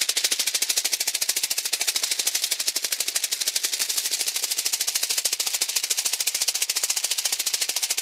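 Insect wings beating: a rapid, even, dry fluttering rattle of many strokes a second, mostly high in pitch.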